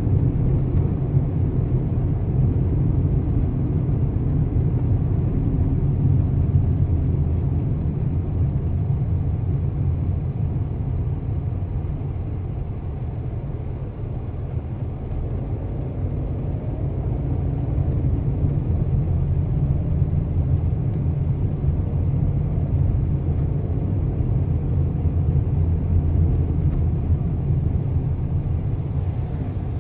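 Steady low rumble of a car being driven on city roads, the road and engine noise easing slightly about halfway through.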